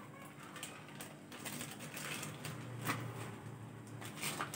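Faint handling noise: scattered small clicks and soft rustles from a plastic pouch being squeezed as yogurt is emptied into a steel pot.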